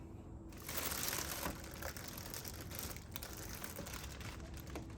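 Rustling and crinkling with light clicks, starting about half a second in: the oil filter cartridge being worked and pulled out of its housing.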